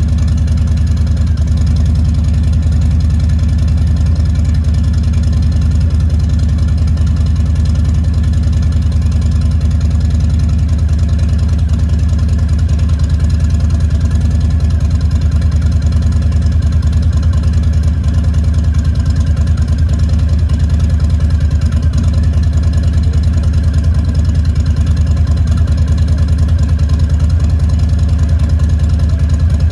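Harley-Davidson Twin Cam V-twin engine idling steadily, run after an oil and filter change to circulate the fresh oil before the level is checked.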